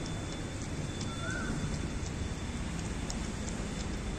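A dog lapping milk from a bowl, a run of small irregular wet clicks over a steady outdoor background hiss. A short high chirp sounds about a second in.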